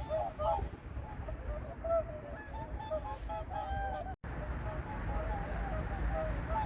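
A flock of whooper swans calling: many short, honking calls overlapping one another over a low background rumble. There is a momentary break about four seconds in, and after it the calls are fainter.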